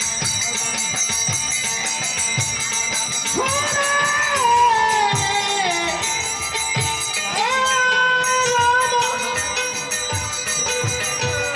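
Live kirtan music: a voice sings a devotional chant in long held notes that slide up and down, over steady jingling of small metal cymbals and the beat of a hand drum.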